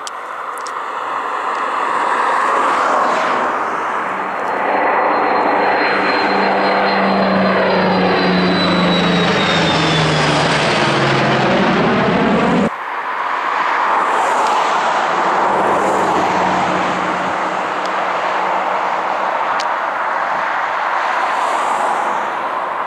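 Lockheed P-2V Neptune air tanker passing low overhead: the drone of its two radial piston engines and propellers, with a high whine from its jet pods, drops in pitch as it goes by. After an abrupt cut about 13 seconds in comes the steady roar of a DC-10 air tanker's jet engines in flight.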